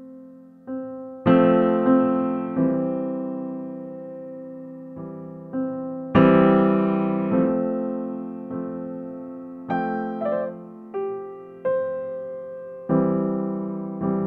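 Background music: a slow piano tune, single notes and chords struck and left to ring out.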